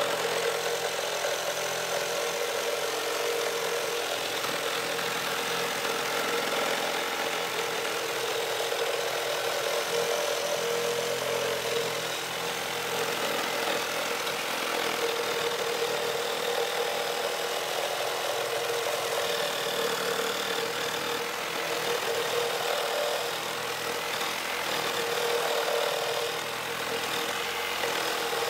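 Makita DJR187 18V brushless reciprocating saw running steadily at speed, its blade sawing through a thick timber beam, with a steady motor note under the rasp of the blade in the wood.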